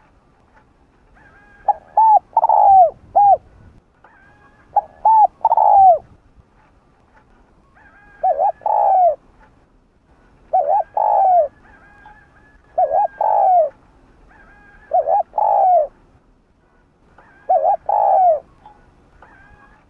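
Spotted dove cooing: seven phrases, one every two to three seconds, each a few short coos run into a longer falling coo.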